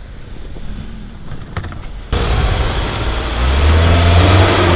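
A quieter car engine, then from about two seconds in a Mitsubishi Outlander's engine revving hard under load in snow, with a hiss over it, its revs climbing toward the end; the wheels are slipping, which the drivers put down to the traction assist being switched off.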